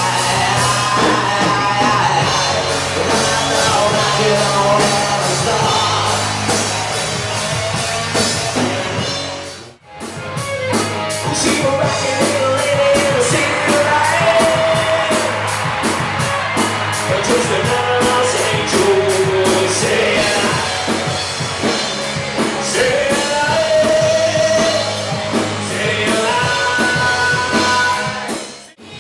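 A live rock band playing: a male singer over electric guitar, bass and a drum kit keeping a steady beat. The music breaks off sharply for a moment twice, about ten seconds in and just before the end.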